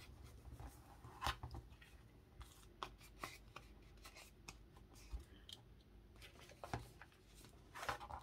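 Faint handling of paper on a handmade journal: light rustling with scattered small taps and clicks, the sharpest about a second in and a few more close together near the end.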